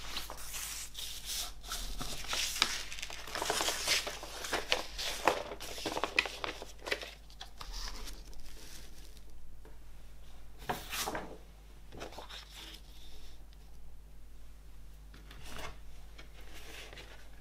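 Paper record sleeve and cardboard jacket rustling and sliding under hands, with dense rustling for the first several seconds. A sharp scrape comes about eleven seconds in, followed by lighter rustles.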